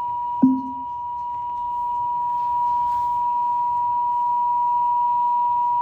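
Weather-radio alert tone: one steady, unbroken high tone near 1 kHz, the 1050 Hz warning alarm that comes before a National Weather Service warning message. A short low blip sounds about half a second in.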